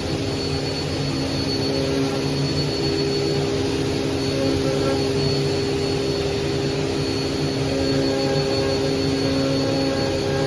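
CNC router spindle running steadily while engraving text into a walnut box, a constant motor whine with a hiss of cutting.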